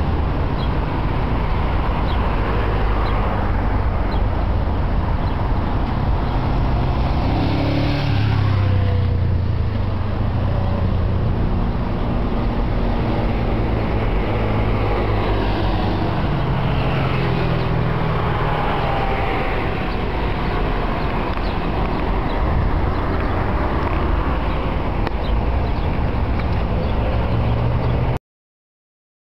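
City street traffic: cars passing one after another over a steady low rumble, with rising and falling engine pitch as vehicles go by. The sound cuts off suddenly near the end.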